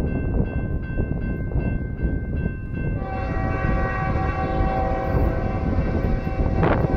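Lead diesel locomotive of a Norfolk Southern coal train blowing its multi-chime air horn: a long chord starts about three seconds in, breaks briefly near the end and sounds again. Before it, a bell dings about three times a second, typical of a grade-crossing bell, over a low rumble throughout.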